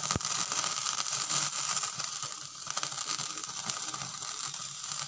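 Skewered chicken intestines sizzling and crackling over a gas stove flame: a dense, rapid crackle over a hiss as the fat renders out. One sharp knock comes right at the start.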